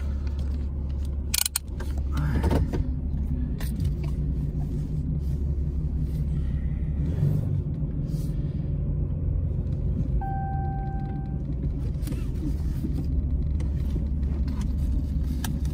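Diesel pickup engine running at low speed with a steady low rumble, heard from inside the cab as the truck rolls slowly. A short electronic beep sounds about ten seconds in.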